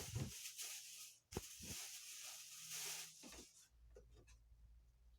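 Rustling and tearing of packaging as a T-shirt is unwrapped, with a few light knocks from handling; the rustle dies away about three and a half seconds in.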